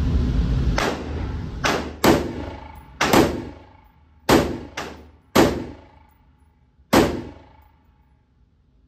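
AR-style rifle fired in single, unevenly spaced shots on semi-automatic, about eight rounds, each crack echoing off the walls of an indoor range. The last shot comes about seven seconds in.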